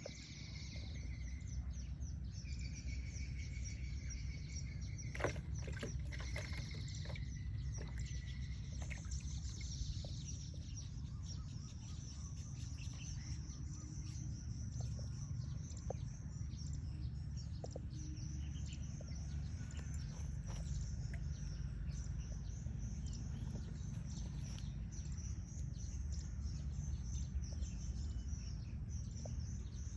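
Rural outdoor ambience: birds chirping over a steady low rumble, with a continuous high chirping and scattered short clicks.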